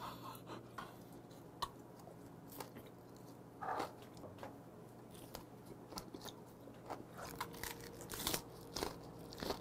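Close-miked chewing of gwamegi, a half-dried, oily herring or saury, by a man: soft wet smacks and scattered mouth clicks as he works the chewy fish, with a few louder smacks here and there.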